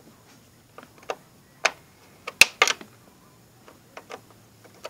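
Irregular metallic clicks and knocks from hand tools and door parts being handled while working on a car door's screws, about eight in all, the sharpest about two and a half seconds in.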